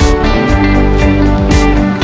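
Background music with a steady beat, led by a strummed guitar.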